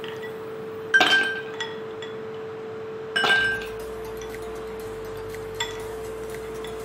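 Ice cubes dropped into empty glass tumblers: two sharp clinks that ring briefly, about a second in and about three seconds in, then a lighter tap later. A steady faint hum runs underneath.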